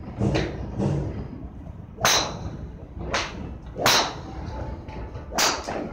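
Golf clubs striking balls at a driving range: four sharp cracks, irregularly spaced, with a brief metallic ring, too close together to come from one golfer, with a couple of softer thuds early on.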